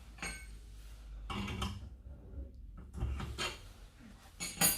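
Scattered clatter and rubbing sounds of objects being handled, ending in a sharp clink about four and a half seconds in.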